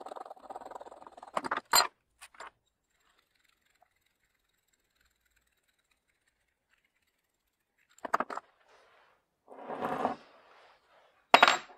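Greasy steel parts of a coaster brake hub being handled: light scraping and rattling as the cone and nut are turned off the axle by hand, with a few sharp metal clicks. After a quiet stretch, more clicks, a short scrape and a loud clink near the end as parts are set down on the bench.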